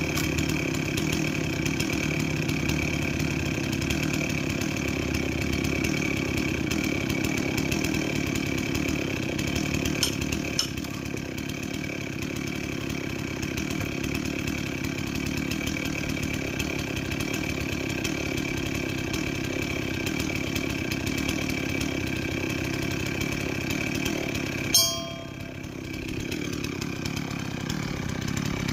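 A chainsaw running at a steady speed, with a sharp click near the end after which the sound dips briefly and builds back.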